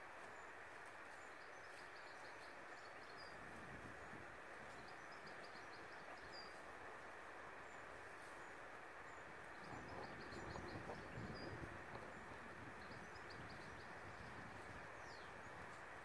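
Faint outdoor ambience: a steady hiss, with small birds chirping in quick runs of short high notes every few seconds. A low rumble swells for a couple of seconds a little past the middle.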